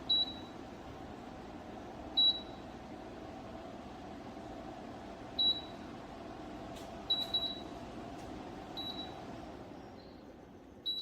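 Tower fan running with a steady rush of air, and several short, high beeps from its control panel as settings are changed. The air noise fades near the end.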